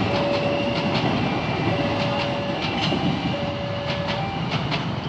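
Passenger coaches of an express train rolling past, steel wheels clicking in pairs over the rail joints over a steady rolling rumble that eases slightly as the last coach draws away. A steady tone sounds three times, each for just under a second.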